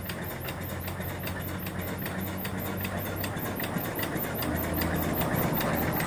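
Small homemade single-cylinder steam engine (2.75-inch bore, 4-inch stroke) running steadily on steam from its vertical boiler, with an even beat of about five strokes a second. It grows a little louder about two-thirds of the way through.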